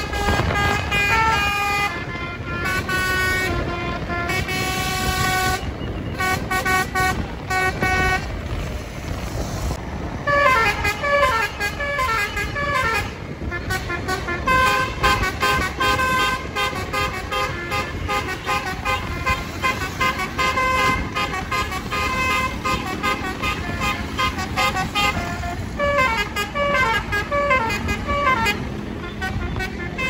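Very loud roof-mounted basuri 'telolet' musical bus horn playing tunes: quick sequences of pitched horn notes, with cascading falling runs about ten seconds in and again near the end. Road noise from the bus and motorcycles runs underneath.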